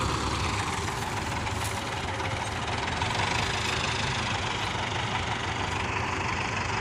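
Diesel engines of Belarus 510 tractors running steadily.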